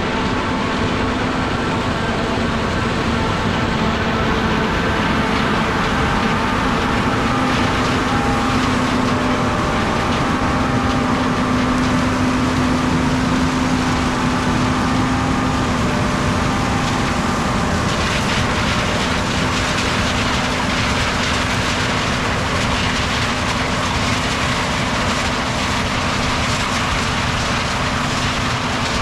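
Heavy harvest machinery running steadily under load: a loud engine drone with a steady whine. About two-thirds of the way through it turns harsher, with more hiss.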